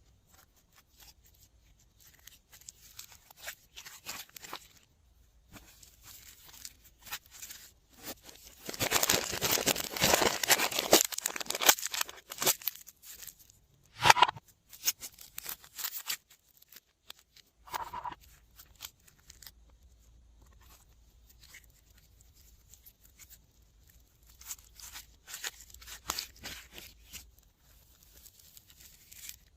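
Glossy slime being squished and stretched by hand, giving sticky crackling and clicking sounds, densest and loudest for a few seconds in the middle.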